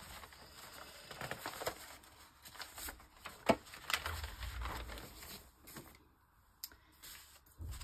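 Paper rustling and sliding as sheets are handled and fitted together, with scattered light taps on the work surface; the sharpest tap comes about three and a half seconds in.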